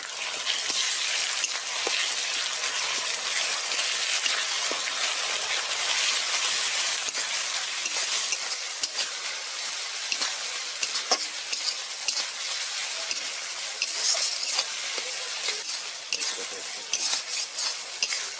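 Onions, tomatoes and freshly added ground spice pastes sizzling in hot mustard oil in a metal karahi. A flat spatula stirs them steadily, scraping and clicking now and then against the pan.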